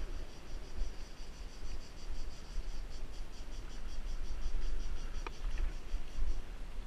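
Insects chirring in a high, evenly pulsing rhythm that stops shortly before the end. Under it is a strong low rumble of wind and riding on the dirt trail, picked up by the moving bike-mounted microphone, with a single sharp click a little past five seconds in.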